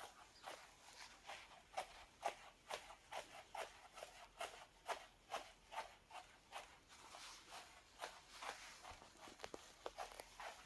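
Kitten-heel shoes clicking in a walking rhythm, a faint sharp heel strike about twice a second.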